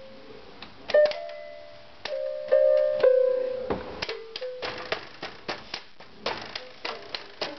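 A child banging on a toy electronic keyboard, playing piano-like tones. It starts with a few loud held notes, then about four seconds in turns to a quick run of sharp plastic key clicks, about three a second, with short notes among them.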